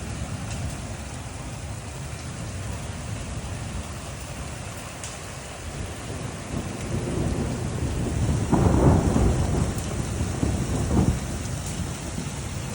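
Steady rainfall with thunder rumbling under it. The thunder builds to a loud peal about two-thirds of the way in and swells again briefly near the end.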